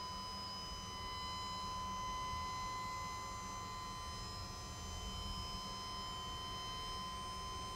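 Dump truck's hydraulic hoist running, raising the dump bed: a steady whine over a low rumble.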